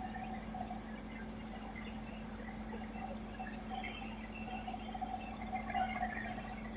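Bulldozer's diesel engine running steadily with an even hum, faint scattered ticks and rattles over it.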